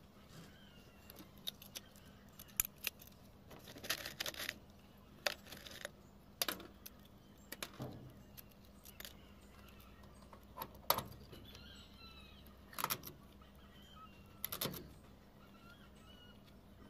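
Metal hand tools and screws clinking and knocking against a corrugated metal roof as they are handled. The sound comes as scattered sharp clicks and short clatters, with brief pauses in between.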